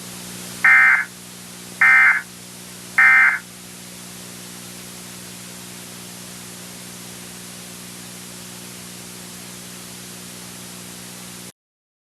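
Three short bursts of Emergency Alert System SAME data tones about a second apart, the end-of-message signal closing the alert. Then a steady low hum under static hiss, which cuts off suddenly near the end.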